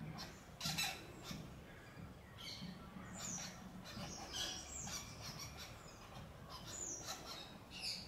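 Flameback woodpecker bathing in a small water container: short splashes and wing flutters, the loudest under a second in. A few brief, high bird chirps that fall in pitch sound through the middle and near the end.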